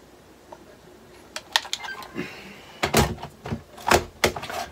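A run of sharp clicks and knocks from hard things being handled by the games console on the shelf, starting about a second in and loudest in the last two seconds.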